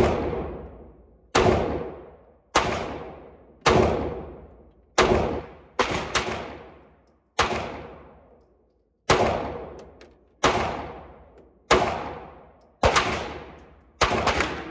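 FMK 9C1 Gen 2 9mm pistol firing slow, deliberate shots, about a dozen at roughly one a second, with two fired close together near the middle. Each shot is a sharp crack followed by a long echoing tail off the walls of the indoor range.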